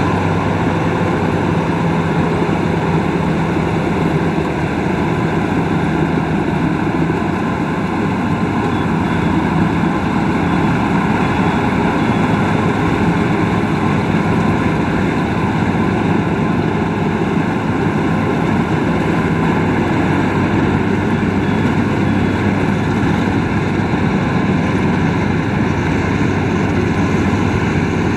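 Rice combine harvester running steadily, a loud unbroken engine hum with a noisy mechanical rush over it.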